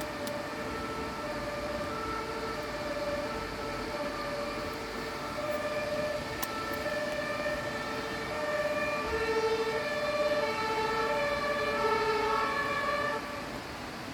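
Ambulance siren sounding in two alternating tones over the steady hiss of light rain. It grows louder over the last few seconds, then cuts off suddenly shortly before the end.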